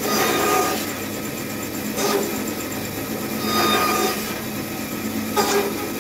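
Power woodworking machine used for cutting joints, running steadily as wood is fed through it. It gets louder and higher in four short surges as the blade bites, once at the start, about two seconds in, around three and a half seconds, and near the end.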